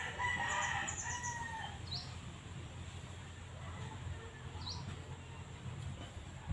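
A rooster crowing once near the start, a drawn-out call of about a second and a half, over a steady low hum. Two short high chirps follow later.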